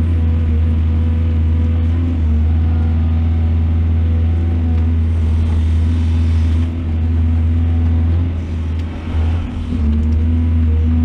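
Excavator's diesel engine running steadily under load, a loud low hum with a constant whine above it. The level drops briefly a couple of times in the second half.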